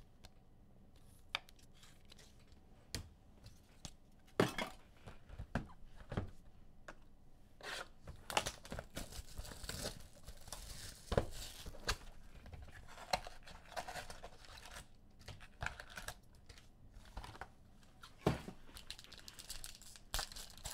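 Trading card packs being torn open by hand and their wrappers crinkled, with scattered sharp snaps and clicks.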